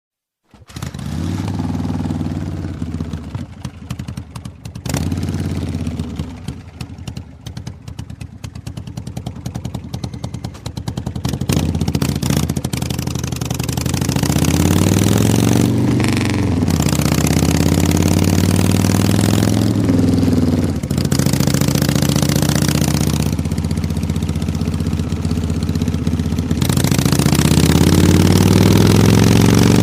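Harley-Davidson V-twin motorcycle engine starting and idling with a pulsing beat. It is then revved a few times and settles at a higher, steady speed. Near the end its pitch climbs steadily as it accelerates.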